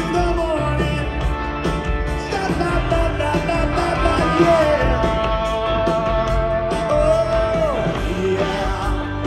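Live rock band playing: drums, electric guitars, bass and keyboards under a lead vocal, which holds one long note through the middle and bends down off it near the end. Heard from the audience, with the big open sound of a live concert mix.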